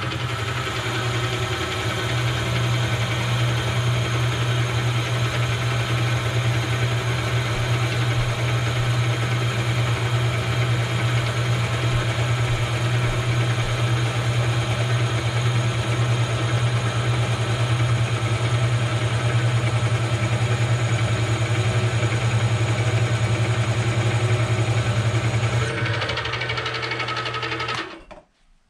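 Milling machine spindle running steadily with a strong low hum as a twist drill bores a balancing hole into a two-stroke crankshaft counterweight, with metal chips coming off. The machine shuts off suddenly near the end.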